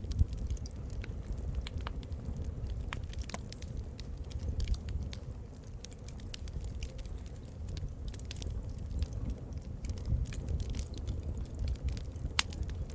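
Wood fire crackling, with irregular sharp pops over a low steady rumble and one sharper pop near the end.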